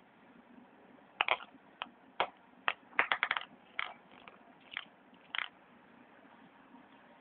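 A run of irregular sharp clicks and taps, about a dozen over four seconds, several close together in the middle.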